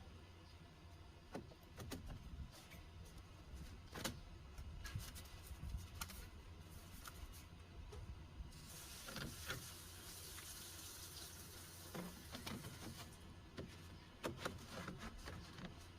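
Faint, scattered clicks and knocks of laptop parts being handled, with a soft hiss for a few seconds in the middle.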